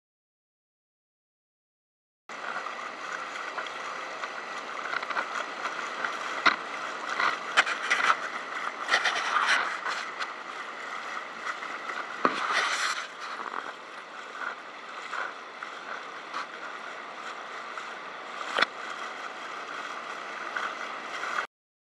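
Silent for about the first two seconds, then water splashing and lapping against a kayak on choppy open water, a steady wash of noise broken by occasional sharper splashes and knocks.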